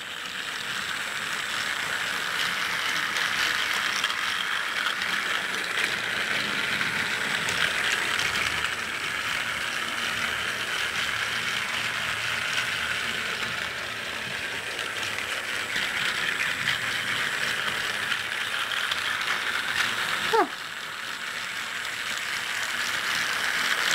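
Battery-powered TrackMaster Duchess toy engine, running on two AAA batteries, hauling its tender and coach along plastic track: a steady whirring rattle of its small electric motor and gearbox, which sounds healthy. About twenty seconds in there is a short click, after which it runs a little quieter.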